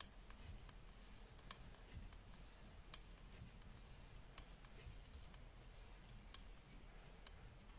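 Knit Pro 5 mm knitting needles clicking lightly against each other while a row is purled, in sharp, irregular ticks about one or two a second.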